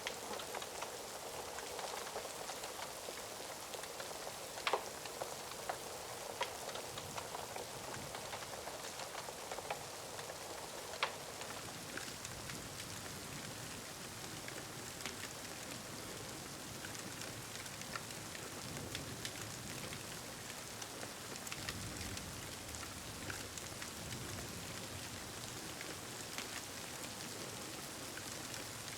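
Steady heavy rain, with a few sharp crackles in the first half. A soft, low rumble of distant thunder comes in during the second half.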